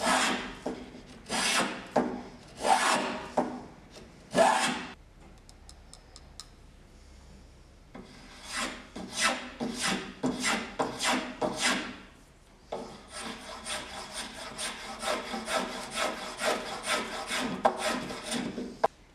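Metal spokeshave cutting shavings from a wooden strip held in a vise, each push a rasping scrape of the blade through the wood. A few long strokes, a pause of a few seconds, then quicker, shorter strokes in rapid succession.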